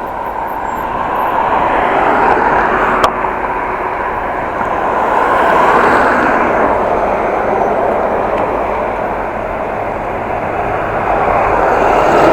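Road traffic, cars and buses, passing close by, a rushing noise that swells and fades as each vehicle goes past, with a single sharp click about three seconds in.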